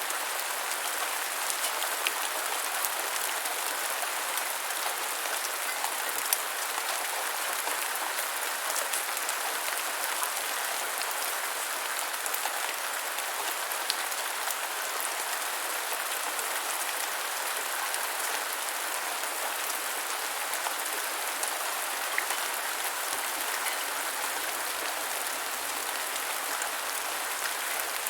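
Steady rain falling on the ground, an even hiss with scattered sharper drop ticks.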